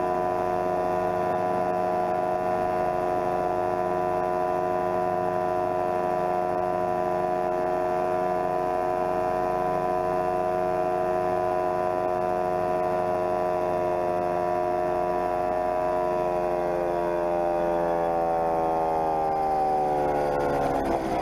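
Homemade coaxial helicopter's drive and rotors running with a steady pitched hum. Over the last few seconds the pitch falls as the power comes off and the rotors spin down at the end of the flight.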